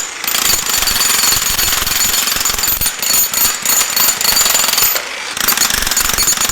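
A 35-pound demolition hammer (jackhammer) hammering rapidly, breaking up concrete, with short pauses about three and five seconds in.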